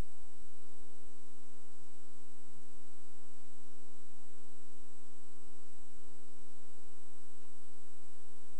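Steady mains hum with buzzy overtones and a faint high-pitched whine, unchanging throughout.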